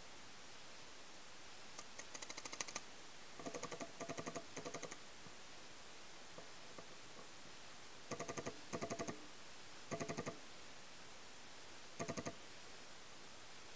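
Paintball markers firing in rapid strings of sharp pops, about ten shots a second, in several short bursts with pauses of a few seconds between them.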